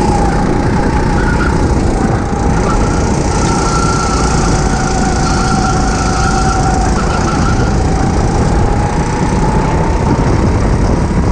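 Go-kart engine running steadily. Its note wavers, dips a little midway and climbs slowly near the end, over a heavy low rumble.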